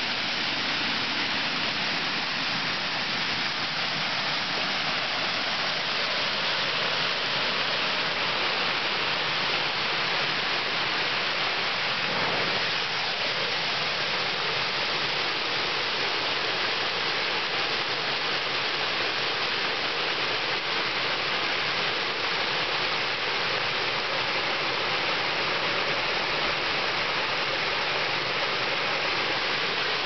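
Steady rushing of river water pouring over a small stone weir on the Ialomița, a constant, even hiss of falling and churning water.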